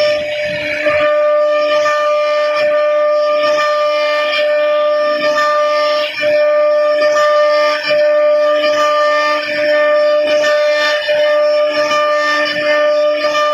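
CNC router spindle running with a steady, high whine while carving wood.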